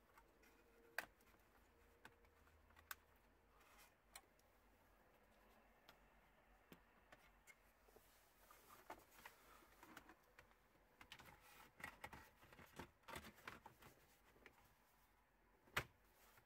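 Plastic clicks and rattling as a car's dashboard radio and trim panel are handled and fitted back in: a few single clicks, a busy run of small clicks and rustling about halfway through, and one sharp snap near the end as the trim bezel is pressed home.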